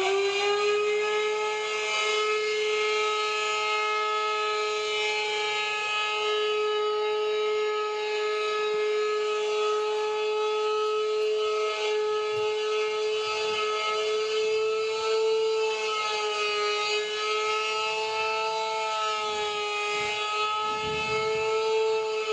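Mobile alert siren at full speed, holding one steady, unbroken tone after winding up, with a slight waver in pitch near the end.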